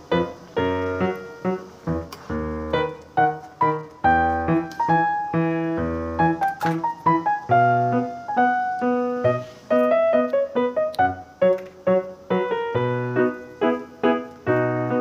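Background piano music: a steady run of plucked-sounding keyboard notes over repeated low bass notes.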